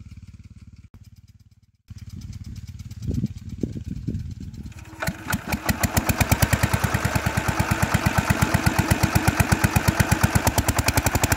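Small engine-driven irrigation water pump running, feeding sprinklers. Its steady, rapid firing beat grows much louder about five seconds in.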